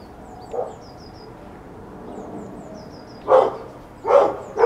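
A dog barking in short single barks, once about a second in, then three times in quick succession near the end.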